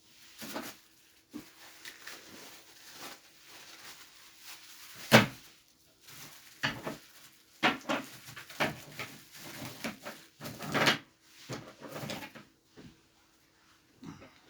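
Irregular knocks, clatters and rustling of objects being handled, with the loudest knock about five seconds in.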